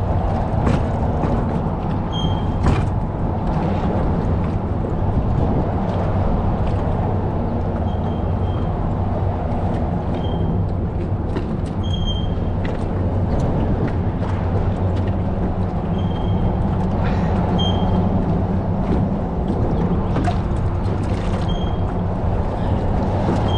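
A boat's motor running steadily with a low, even hum. Short high chirps come every few seconds, with faint clicks scattered through.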